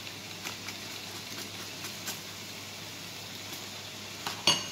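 Onions sizzling steadily as they saute in a frying pan, with a few faint clicks and one sharp clink near the end.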